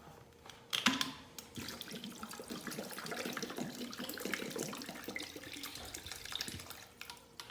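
Water pouring into a cooking pot for about five seconds, with small splashes, after a knock near the start.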